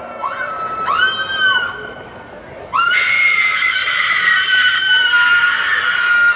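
High-pitched screaming: two short shrieks that rise and fall in the first two seconds, then one long scream that starts about three seconds in and is held at a nearly steady pitch.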